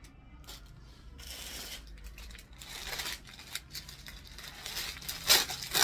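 Plastic garment packaging rustling and crinkling as clothes are handled, growing louder near the end with a few sharp crackles.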